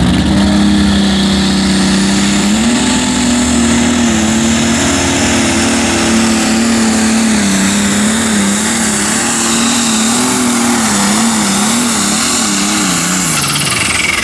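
Light limited super stock pulling tractor's diesel engine running at full throttle while dragging a weight-transfer sled. The revs hold high, step up a few seconds in, waver up and down through the second half, then fall away near the end.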